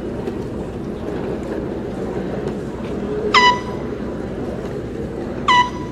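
Finish-line horn giving two short, high-pitched blasts about two seconds apart, one for each single scull crossing the finish line, over a steady low background murmur.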